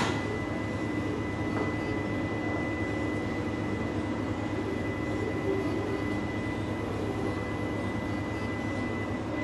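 Dynamic balancing machine spinning a Mitsubishi 4G63 crankshaft on its rollers: a steady mechanical whir with a thin high whine, after a sharp click at the start. It is a check spin to locate the crankshaft's heavy spot before drilling.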